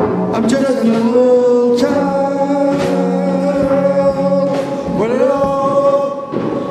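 A man singing into a microphone, holding long notes, with a sliding rise in pitch about five seconds in.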